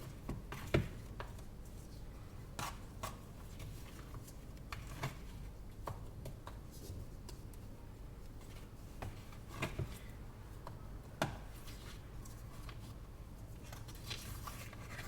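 Scattered light taps, clicks and scrapes from handling a container of melted chocolate, over a low steady hum.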